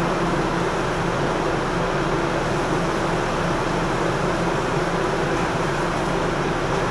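Restaurant wok station's gas burner and exhaust fan running: an even rushing noise with a steady low hum underneath.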